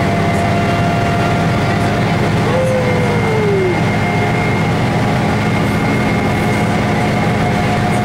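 Cabin sound of a 1988 MAN SL202 diesel city bus under way: steady engine and drivetrain drone with road noise, and thin steady whines above it. A short falling tone is heard about two and a half seconds in.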